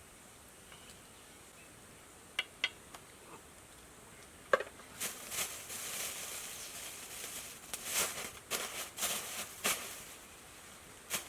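A few sharp clicks, the loudest about four and a half seconds in, followed by several seconds of dense rustling and crackling that fades near the end.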